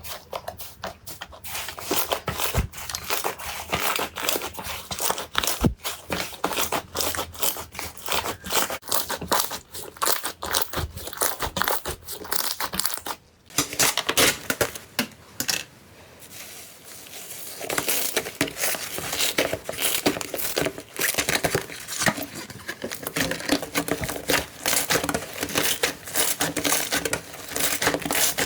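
Slime being squeezed and pressed by hand, giving a dense run of crackling pops and clicks. It breaks off briefly about halfway, stays softer for a few seconds, then crackles densely again.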